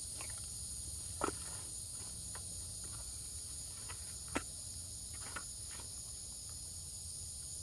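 Steady high-pitched chirring of crickets or other insects, with a few light clicks and taps scattered through, the loudest a little over a second in and about four seconds in.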